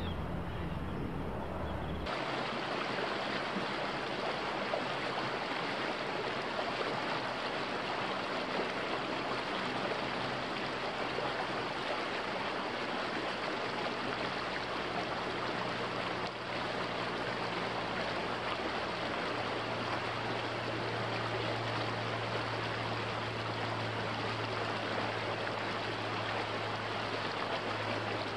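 A low rumble for about two seconds, then a sudden cut to a small, fast creek rushing and splashing over rocks: a steady, even rush of water.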